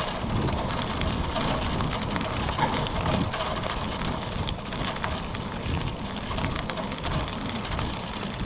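Steady rushing road and wind noise from riding a bicycle, with many small crackles throughout.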